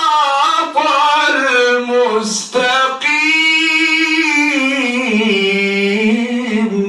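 A man's voice reciting the Quran in the melodic tajweed style, drawing out syllables in long ornamented phrases, with short breaths about a second in and again after two and a half seconds. The last long phrase sinks in pitch and ends near the close.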